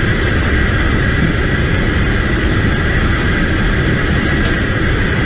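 A running vehicle: a steady, unbroken rumble of engine and road noise with a constant hum above it.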